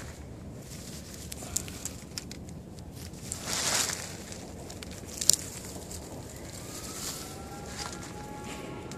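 Footsteps and brushing through dry scrub, with sharp twig crackles and a loud rustle of leaves against the phone's microphone about halfway through. A faint steady tone starts near the end.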